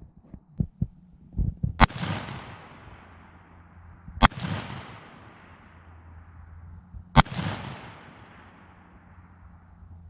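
Three rifle shots from an AR-15 in 5.56/.223, spaced about two and a half to three seconds apart, each trailing off for about two seconds. It is a test group fired after a sight adjustment, to zero the iron sights. A few light clicks of handling come just before the first shot.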